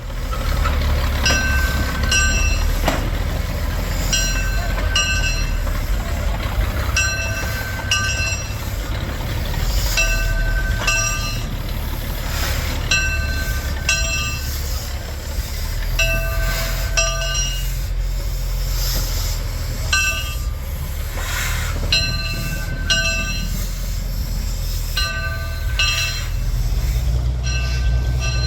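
Small diesel switcher locomotive running steadily as it tows a steam locomotive along narrow-gauge track, with short high ringing notes recurring, often in pairs, every couple of seconds.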